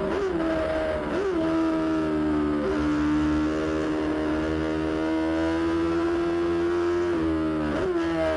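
MV Agusta racing motorcycle engine running at high revs, holding a steady high pitch, with brief dips in pitch a few times.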